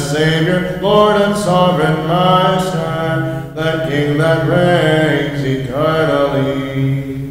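Men's voices singing Byzantine chant at Vespers: a melody in short, moving syllables over a steady held low note, the ison drone. It dips briefly about halfway through.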